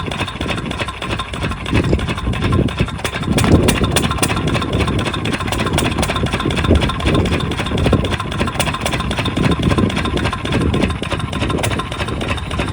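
Diesel engine of an irrigation water pump set running steadily with a fast, even knock.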